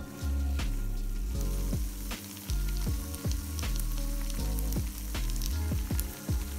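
Creamy pasta sauce sizzling in a non-stick frying pan, with frequent sharp crackles, over background music with a low bass line.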